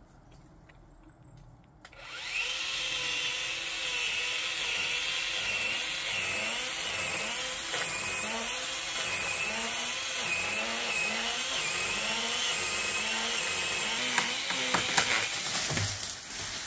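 Parkside battery pole saw starting about two seconds in and running steadily as it cuts wood, its pitch wavering up and down under load. A few sharp clicks near the end.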